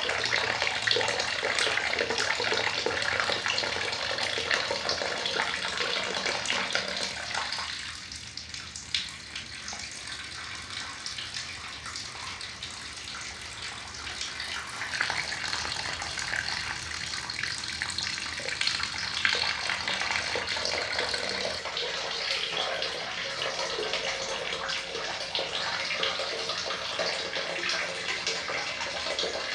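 Running water splashing steadily. The flow drops noticeably quieter about a quarter of the way through and picks up again partway a little after the middle.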